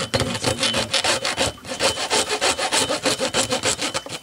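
Hacksaw sawing through a catfish's head and skull in rapid, even back-and-forth strokes, with a brief pause about a second and a half in.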